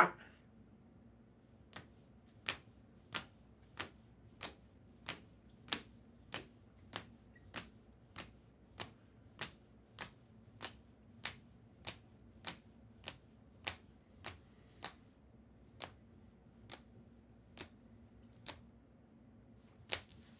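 A long series of sharp, evenly spaced clicks, about three every two seconds, with a gap near the end before two more.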